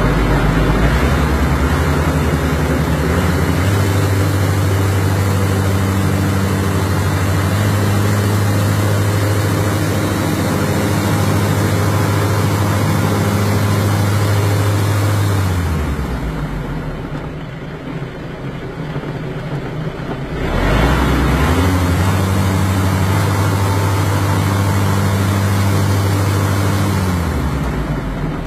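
Tractor engine running with a Frontier GM1060R grooming mower on its PTO. It is throttled up to a steady high speed in the first few seconds, drops back to idle about 15 seconds in, comes back up about 20 seconds in, and drops again near the end.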